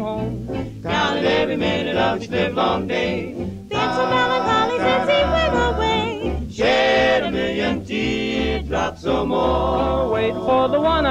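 Music: a song's wordless yodeling vocal over a bass accompaniment.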